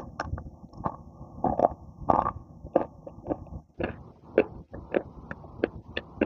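Crunchy clay being bitten and chewed close to the microphone: a quick, irregular string of sharp crunches.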